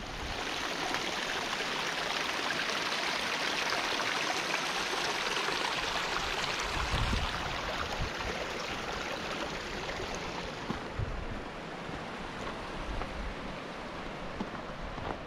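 Rushing water of a mountain stream: a steady, even hiss that eases a little after about ten seconds and cuts off suddenly at the end.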